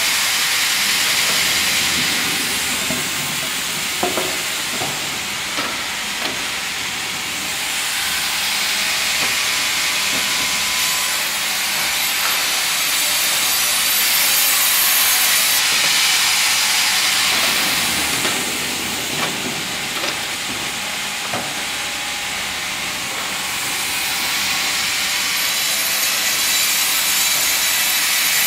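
Hydraulic vertical log band saw cutting through a log fed by its carriage: a loud, steady hiss of the blade in the wood that swells and eases in long waves. A few light knocks come about four to six seconds in.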